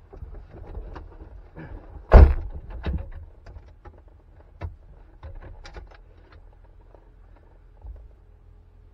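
A man climbing into the driver's seat of a C4 Corvette: one loud thump about two seconds in, then a few lighter clicks and knocks from inside the cabin.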